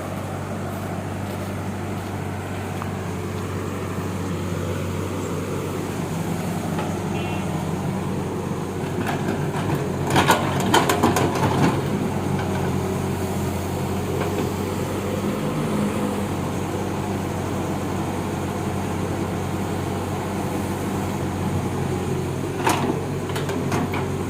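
Excavator's diesel engine running steadily, with a cluster of sharp knocks about ten seconds in and another knock near the end.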